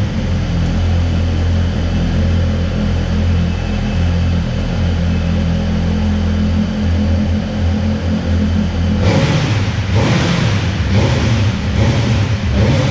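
Sport motorcycle engine idling steadily, then revved in a series of short throttle blips from about nine seconds in.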